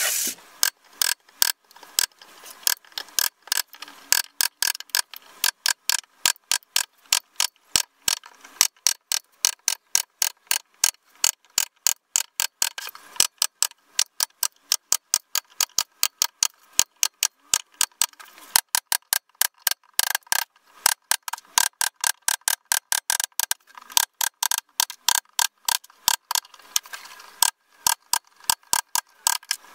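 Rapid, rhythmic strokes of a hand tool working a workpiece, about three a second, each with a short ringing tone. There is a brief pause near the end.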